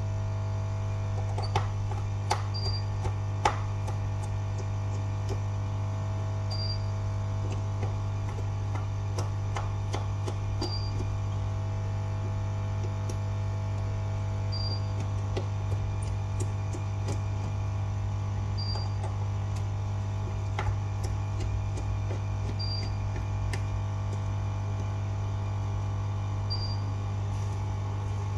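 Steady electrical mains hum with a short high beep about every four seconds, and a few light clicks and taps of small tools on the phone, mostly in the first few seconds.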